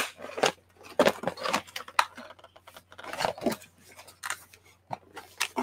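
A cardboard toy box being torn and pulled apart by hand: a string of short, irregular rips and crackles as the toy, still held fast inside, is worked loose.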